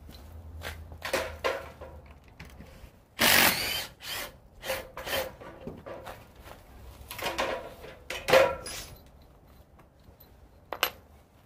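Handling noise: irregular rustles and knocks as someone moves about and handles tools close to the microphone. It is loudest a little past three seconds in and again past eight seconds, with a sharp single knock near the end.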